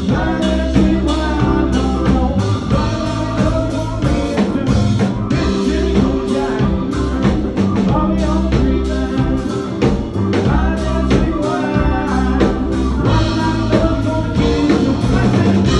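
A live rock band playing loud through a club PA: electric guitar, drum kit and keyboard, with a singer's voice on top.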